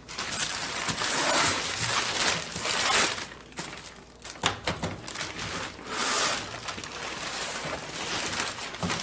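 Packaging being rummaged through while a new microwave oven is unboxed: irregular rustling and crinkling of wrapping, with a few sharp knocks.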